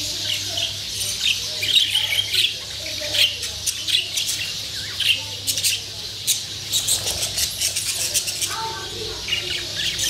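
Budgerigars chattering in their cage: a busy run of quick, high chirps overlapping one another, thickest midway.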